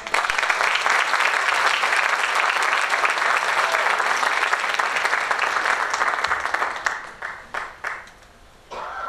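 Audience applauding, dense for about seven seconds, then thinning to a few scattered claps and dying away.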